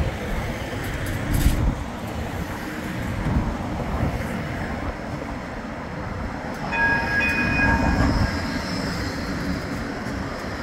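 Bombardier Flexity 2 tram approaching and running past on street-level track, with a steady rumble of wheels and motors that grows loudest as it passes. A brief high warning tone sounds about seven seconds in.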